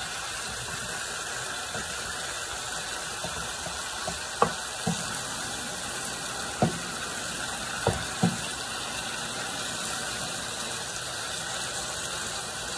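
Pieces of chicken breast sizzling in a hot pan as they sear, a steady hiss, with about five short knocks of a wooden spoon against the pan in the middle of the stretch as they are stirred.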